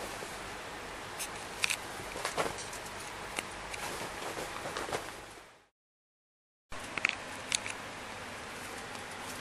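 A kitten scrabbling and burrowing in bedding: soft rustling of the quilt with scattered short scratches and clicks over a steady hiss. The sound fades out a little past the middle, drops to total silence for about a second, then comes back.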